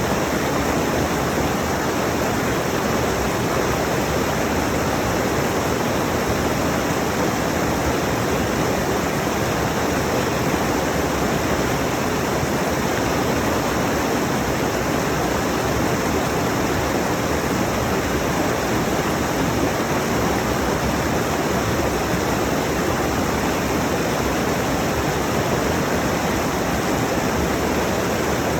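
Rushing mountain stream: water tumbling over rocks in a steady, unbroken roar of noise.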